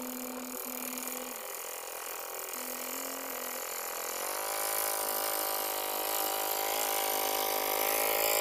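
Single-cylinder diesel engine of an amphibious hand tractor running steadily while it ploughs a flooded, deep-mud paddy field, growing louder toward the end. Its pitch rises about four seconds in, then holds.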